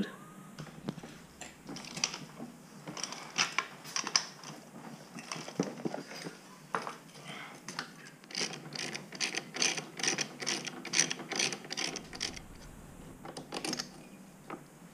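Hand tools working on a Yamaha YZ85 dirt bike's rear wheel and swingarm: irregular runs of sharp metallic clicks and clinks, thickest about two thirds of the way through, as the rear wheel is taken out.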